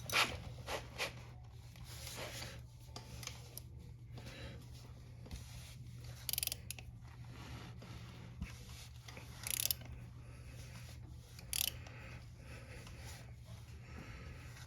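Metal hand tools scraping and clicking on a motorcycle chain press tool as it is tightened to push the connecting-link plate onto the new chain's pins: short scattered scrapes and ticks, a few sharper ones, over a steady low hum.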